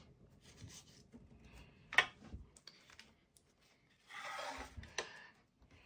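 Topps Match Attax trading cards handled by hand: a sharp click about two seconds in, a short rustle of cards sliding against each other about four seconds in, then another click.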